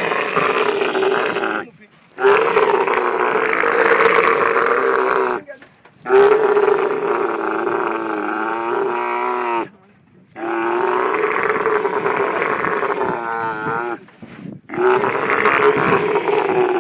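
A camel bellowing in protest as it is held down: five long, loud, groaning calls, each a few seconds long, broken by short pauses for breath, the pitch wavering quickly near the end of the fourth.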